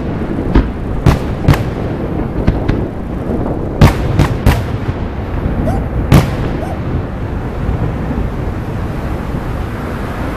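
Aerial firework shells bursting: about nine sharp bangs in the first six seconds, then a continuous low rumble from the display.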